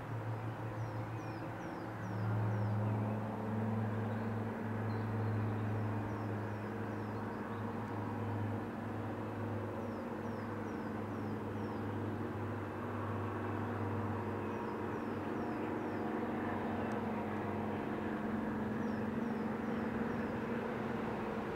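English Electric main-line diesel locomotive approaching under power, its engine running with a steady low note that grows louder about two seconds in. Groups of short high bird chirps repeat faintly over it.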